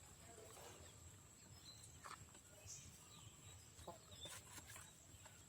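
Faint clucking and short calls from backyard chickens, with a few scattered clicks.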